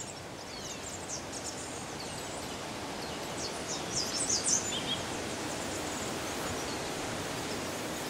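Tropical forest ambience: a steady hiss of background noise with bursts of short, high bird chirps, the loudest cluster about four seconds in.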